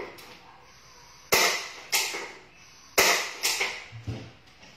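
Kitchenware knocking and clattering as things are handled at the counter and lower cabinet: four sharp bangs in two close pairs, each ringing out briefly.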